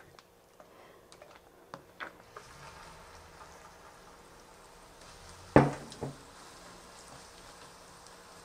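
Kimchi pancake batter frying in hot oil in a nonstick pan: a faint steady sizzle that starts about two seconds in. A few light clicks of a spoon come first, and a sharp spoon knock with a smaller one just after comes about halfway through.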